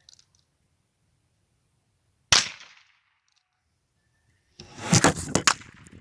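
A .22 LR pistol shot: one sharp crack about two seconds in, with a short tail. Near the end comes a louder burst of several sharp knocks and clatter lasting about a second.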